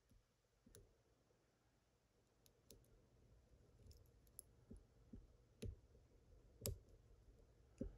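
Faint, scattered clicks of a lock pick working the pins inside a Toledo Black TBK90R padlock under tension, about a dozen light ticks with two sharper clicks near the end.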